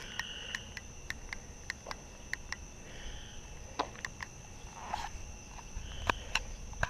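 Crickets trilling steadily at one high pitch, with scattered sharp clicks and a few short higher calls now and then.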